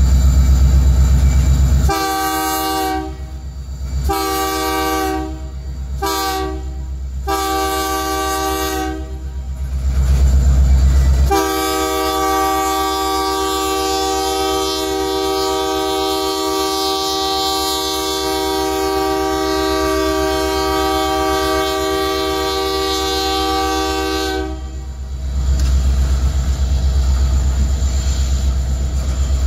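Freight locomotive's multi-note horn sounding five short blasts, then one long blast of about thirteen seconds, over the low rumble and clatter of freight cars rolling past.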